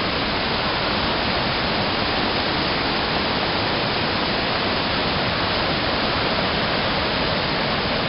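Waterfall cascading down rocky steps into a stream: a steady, continuous rush of water.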